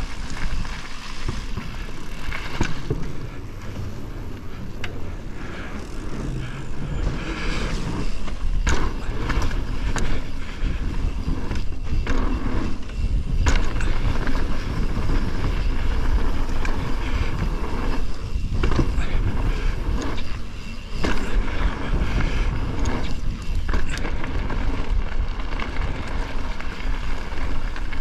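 Mountain bike riding on a dirt and gravel trail, heard from the rider's GoPro: a steady rumble of wind on the microphone and tyres rolling over the ground, broken by sharp knocks and rattles of the bike over bumps several times.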